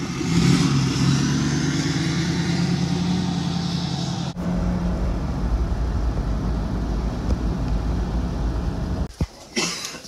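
Road vehicle engine running while driving, a steady low drone. It changes abruptly to a deeper rumble about four seconds in, then gives way to a few sharp knocks near the end.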